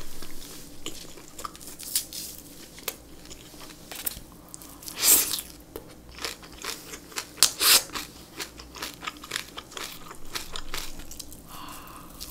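Close-miked eating: wet chewing of boiled pork belly and crunching of napa cabbage kimchi, with a run of louder, sharp crunches about five seconds in and again around eight seconds.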